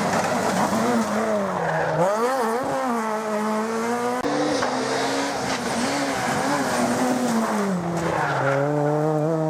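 Rally car engine revving hard as it drives through the stage, its pitch dropping on lifts and gear changes about two seconds in and again near the end, then climbing again, with tyre squeal.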